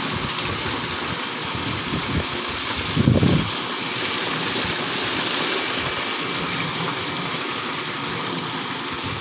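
Water falling in thin sheets from spillway outlets on a stone-clad wall into a shallow pool: a steady splashing rush. A brief low rumble comes about three seconds in.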